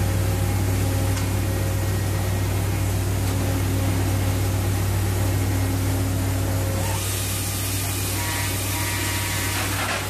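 Steady low machinery hum on a pipe-laying vessel's work deck, with a few faint steady tones above it. About seven seconds in, a rushing hiss joins it for about three seconds.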